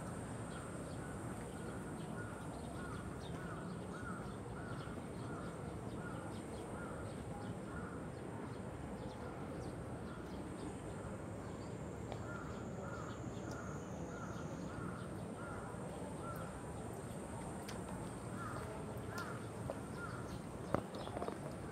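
Crows cawing over and over, about two calls a second, in several runs with short pauses between them, over a steady outdoor background hum.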